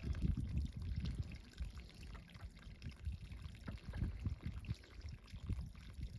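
Water from a garden hose trickling and splashing, with an uneven low rumble under it.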